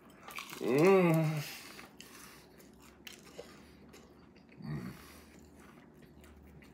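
A man chewing a mouthful of shrimp with faint wet clicks, letting out a long appreciative hum about a second in that rises and then holds, and a second short hum later.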